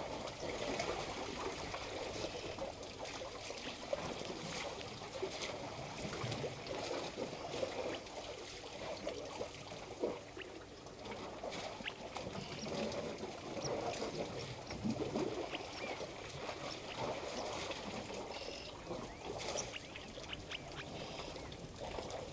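An African elephant herd drinking at a waterhole: steady sloshing and trickling of water at their trunks, with many small splashes.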